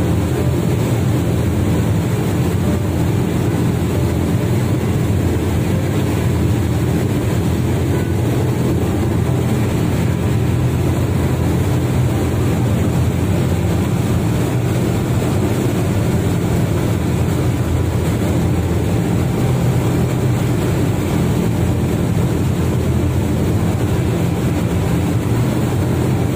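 Fast passenger boat under way at speed: its engines run at a loud, steady drone, mixed with the rush of the foaming wake.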